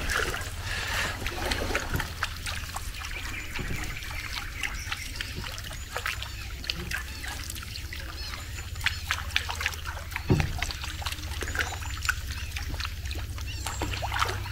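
Small splashes and trickling water as a fishing lure is twitched across the surface, with scattered light ticks, a single dull knock about ten seconds in, and a brief splash near the end as a fish strikes.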